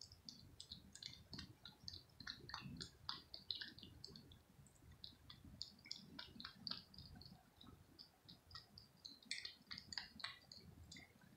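A cat eating chunks of wet cat food from a plate: faint, quick, irregular wet clicks and smacks of its mouth, several a second.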